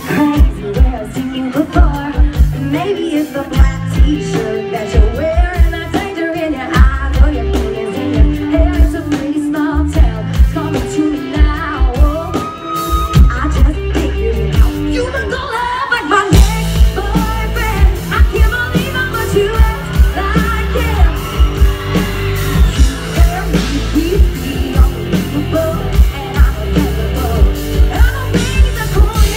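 Live country-pop band playing, with a woman singing lead into a microphone over drums, electric bass, guitar and keyboard. About sixteen seconds in, the band gets fuller and louder, with crashing cymbals.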